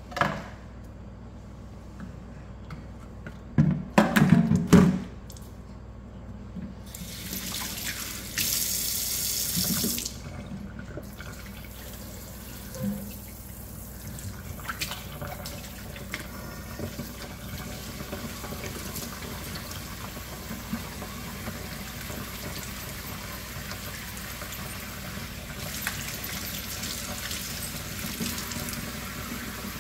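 Kitchen tap running into a stainless-steel sink, with a brief harder, hissier burst from the pull-out spray head about eight seconds in, then a steady stream with hands being rinsed under it. A cluster of loud knocks comes about four seconds in, before the water starts.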